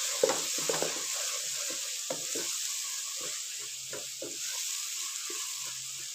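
A tomato-onion masala with ground spices sizzling in oil in a karahi. A wooden spatula stirs and scrapes it against the pan in repeated short strokes as the spices are fried.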